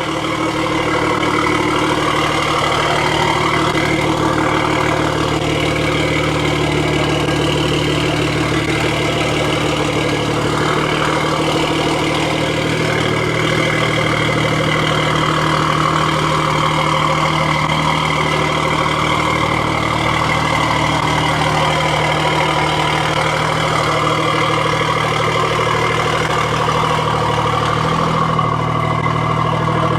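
BMW M340i's B58 turbocharged inline-six idling steadily.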